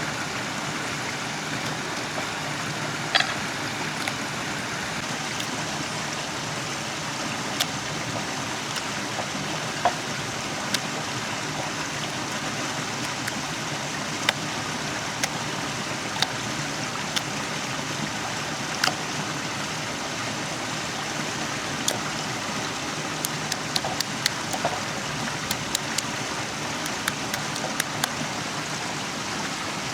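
Wood fire crackling: scattered sharp pops over a steady hiss, the pops coming thicker near the end.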